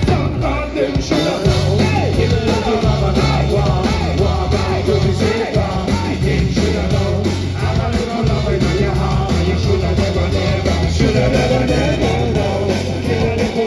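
Live band music played loud, with a heavy repeating bass line and drums under a sung and shouted vocal.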